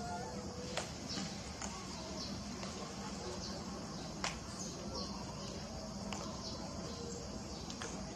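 Steady outdoor background noise with a short high chirp repeating about every second, from a small bird or insect, and a few faint sharp clicks, the loudest about four seconds in.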